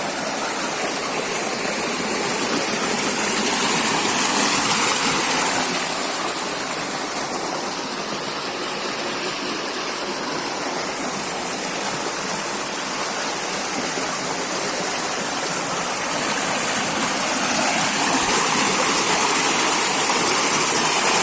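Steady rush of flowing water, swelling a little about four seconds in and again near the end.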